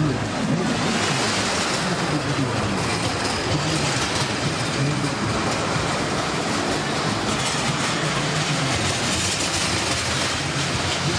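Roller coaster car rolling along its steel track: a steady rattling rumble of the wheels on the rails.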